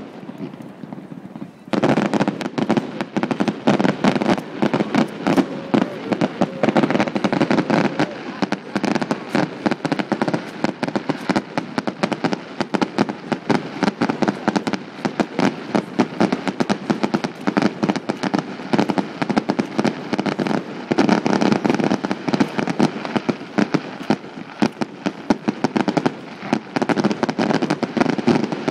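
Fireworks display: a dense, continuous run of bangs and crackles from bursting aerial shells, starting in earnest about two seconds in after a brief lull.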